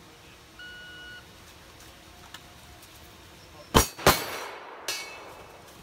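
A shot timer's single start beep, then about three seconds later two rifle shots a third of a second apart, each trailing off in a long echo, followed by a fainter crack with a brief metallic ring.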